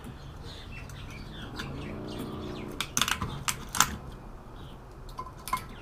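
Handling clicks and light knocks as a CRT deflection yoke is worked loose and lifted off the picture tube's glass neck, with a cluster of sharp clicks a little after halfway.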